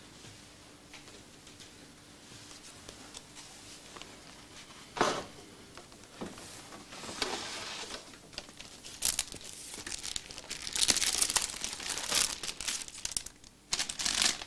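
A single knock about five seconds in, then from about nine seconds on a run of dry paper rustling and crinkling as papers are handled and passed over.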